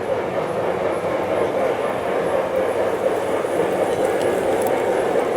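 LGB G-scale model train running along the track: a steady drone with faint, regular clicks about twice a second.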